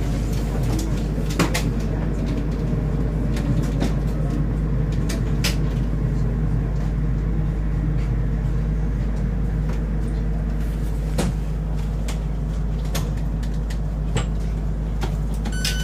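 Inside a DB Class 423 S-Bahn electric train pulling into a station platform: the steady low hum of the running train with scattered clicks and knocks.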